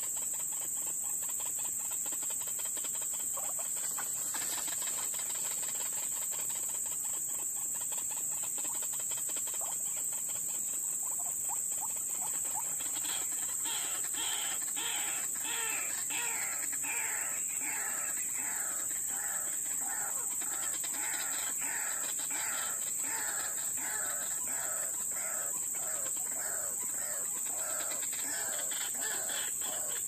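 White-breasted waterhen calling: a fast, rhythmic series of repeated falling notes, about two a second, that starts about ten seconds in and builds in strength. A steady high-pitched drone runs underneath throughout.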